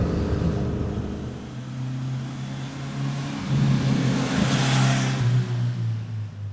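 Kawasaki Z900RS 50th Anniversary's 948 cc inline-four running at steady revs, its exhaust note dropping in pitch in steps about five seconds in as it slows. A brief hiss rises and fades just before the drop.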